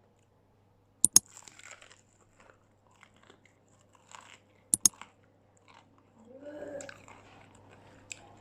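Person biting into crispy battered fried food, close up: two sharp crunching bites, about a second in and about five seconds in, each followed by softer crunchy chewing.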